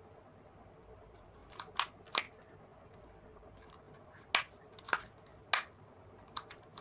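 Plastic casing of a REO 16 A double-pole miniature circuit breaker clicking and knocking as it is turned over in the hands, about eight short, sharp clicks spread over the last five seconds.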